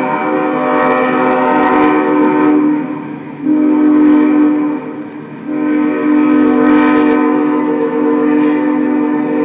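Locomotive's Nathan Airchime K5HL five-chime air horn blowing a loud chord in three blasts, broken briefly about three and five seconds in, the last held on: the warning for the street grade crossing as the freight train rolls through.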